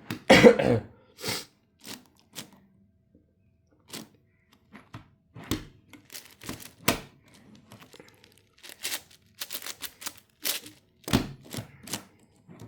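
10x10 Rubik's cube being turned by hand: irregular plastic clicks and clacks of layer turns, some single and some in quick clusters, with short pauses between moves.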